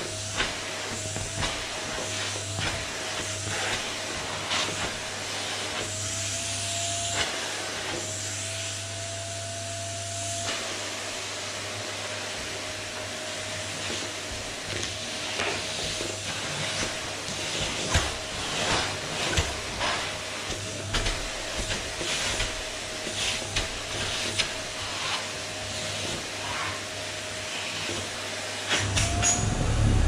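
Canister vacuum cleaner running with a steady whining hiss as its hose nozzle is worked over fabric sofa cushions, with scattered light knocks from the nozzle. The whine rises slightly for a few seconds at a time.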